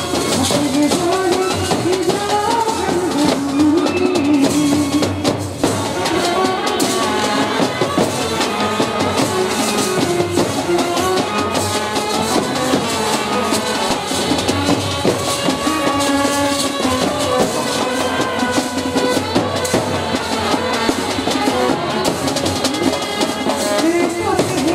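Indian brass band playing: trumpets and brass horns carry a melody over snare drums and a bass drum beaten in a steady, driving rhythm.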